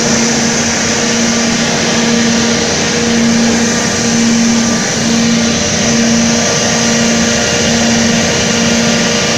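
Steady, loud machinery noise from a coal-fired furnace with its burners firing, with a constant hum that pulses roughly once a second.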